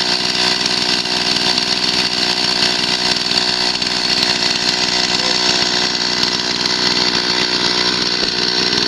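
Norwood portable band sawmill running steadily under load, its gas engine and band blade cutting through a log for lumber.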